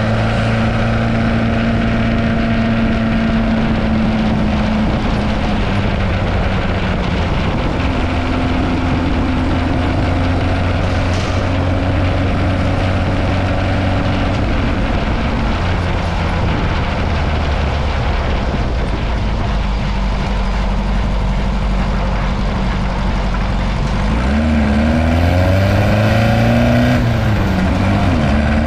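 Dune buggy engine running as the buggy drives on pavement, under a steady rush of road and wind noise. Near the end the engine speed rises and falls a few times.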